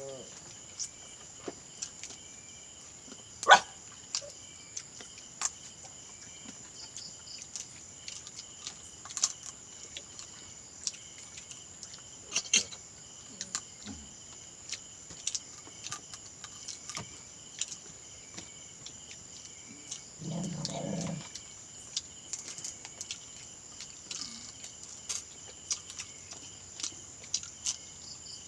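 A steady high-pitched insect chorus at night, with scattered small clicks and knocks, the loudest a sharp click about three and a half seconds in. About twenty seconds in, one short low animal call, likely a dog, lasts about a second.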